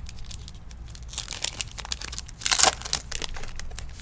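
Foil trading-card pack wrapper crinkling and being torn open, with the loudest rip about two and a half seconds in.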